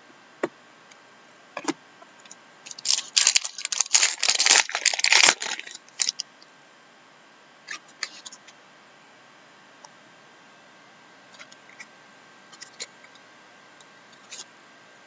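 Crinkling and tearing of a trading-card pack wrapper for a couple of seconds, loudest about three to five seconds in, followed by a few light clicks and taps as the cards are handled.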